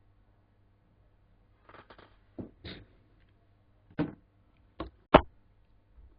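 A handful of short knocks and scrapes, about six in all, the loudest about five seconds in.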